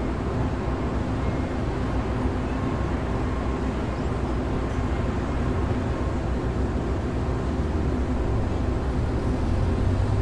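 Steady low rumbling noise with a few faint held tones above it, rising slightly near the end.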